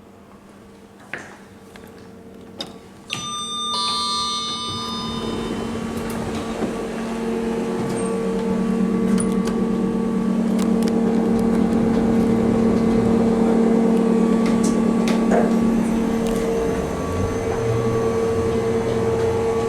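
Kone Sigma monospace lift: a couple of clicks, then a chime with clear ringing tones about three seconds in, followed by a steady hum that grows louder and holds.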